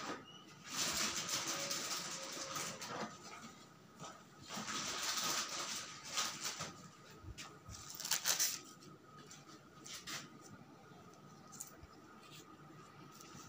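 Rustling and crinkling of gauze dressing material handled by gloved hands: two longer stretches, then shorter scattered rustles and clicks.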